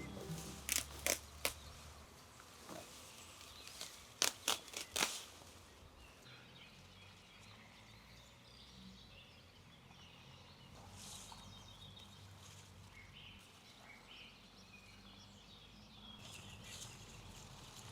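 Sharp clicks, three in quick succession and then three more a few seconds later, followed by a faint outdoor background with a few distant bird calls.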